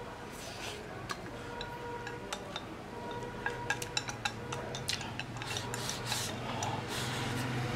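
Wooden chopsticks clicking and scraping against a ceramic rice bowl while rice is shovelled in, with a quick run of sharp clicks in the middle.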